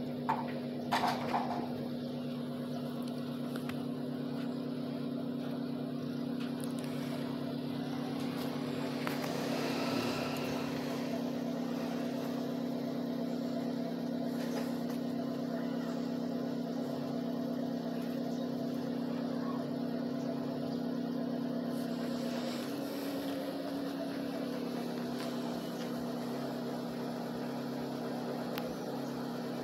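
Steady hum of a running motor. A few sharp clicks sound about a second in, and the hum dips slightly in pitch about two-thirds of the way through.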